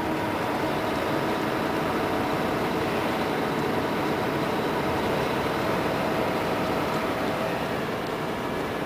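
Volvo B12R coach's rear-mounted straight-six diesel running steadily, a constant engine drone with some road or air noise.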